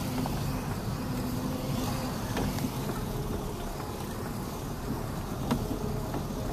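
Steady low rumble of a motor vehicle running nearby, with a faint hum and a few light clicks.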